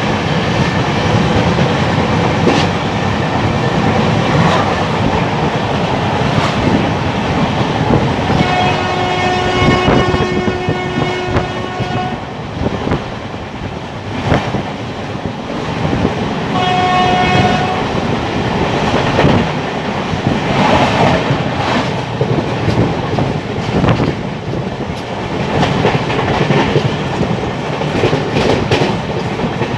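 Deccan Queen Express running on the rails, a steady rumble with the wheels clacking over rail joints. A train horn sounds in one long blast of about four seconds, starting about eight seconds in, then a short blast about sixteen and a half seconds in.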